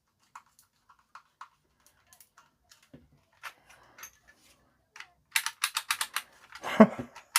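Plastic toy bubble gun clicking as its trigger is pulled over and over, a fast run of sharp clicks about five a second starting about five seconds in, after a few lighter handling clicks, with a duller knock near the end. No motor runs: the reassembled gun is not working, which the repairer puts down to flat batteries.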